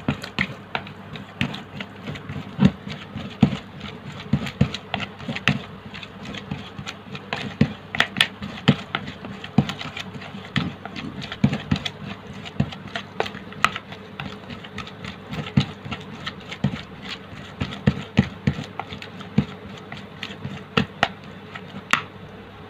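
A plastic spoon stirring a crumbly fishing-bait mixture in a plastic basin, knocking and scraping against the basin in irregular taps and clicks, often several a second.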